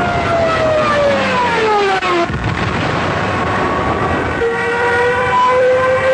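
Junkers Ju 87 Stuka dive bomber sound effect: a loud siren-like whine over a noisy rush. The whine falls in pitch for about two seconds and drops out. A new whine starts about four and a half seconds in and slowly rises.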